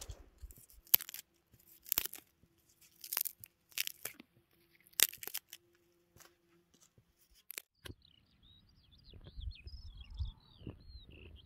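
A few sharp cracks and crunches, spaced about a second apart, over a faint steady hum. Near the end comes a quick twittering run of chirps from a small bird, with a low rumble of wind on the microphone.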